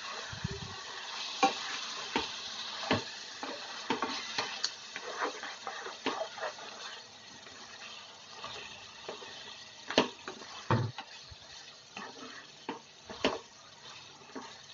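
Achari chicken curry sizzling and bubbling in a pan, with a spatula stirring and scraping against the pan in scattered knocks, the sharpest about a second and a half in and again about ten seconds in.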